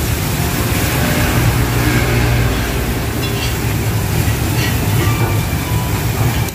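Steady low mechanical rumble of background noise, with a few faint clinks over it.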